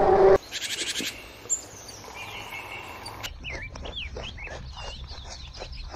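Small birds chirping, a quick run of varied gliding chirps and whistles from about halfway through. Before that, a loud animal call cuts off abruptly just after the start, followed by a brief fast high trill.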